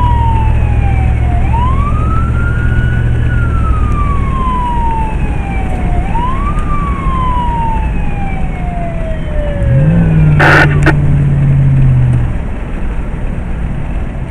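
Emergency vehicle's electronic siren on a wail, its pitch falling slowly and then sweeping back up quickly, over the vehicle's engine and road noise, heard from inside the vehicle. The siren winds down and stops about ten seconds in, followed by two short sharp sounds, leaving engine and road noise.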